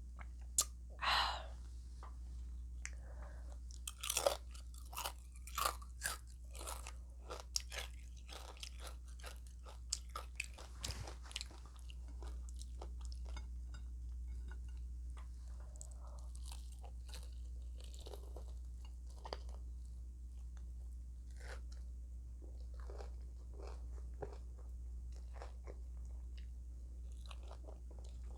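A person biting and chewing crunchy breakfast food close to the microphone, with repeated sharp crunches that are loudest and most frequent in the first dozen seconds, then softer, sparser chewing.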